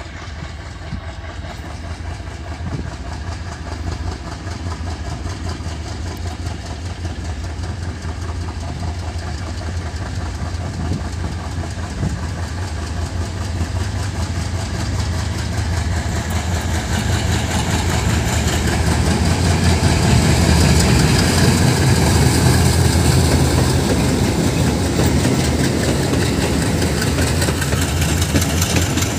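Twin WDM3A Alco diesel locomotives, each with a 16-cylinder ALCO 251 engine, chugging hard under load as they pull a passenger train away from a station stop. The deep engine rumble grows steadily louder as the locomotives approach and pass close by, loudest about two-thirds of the way through.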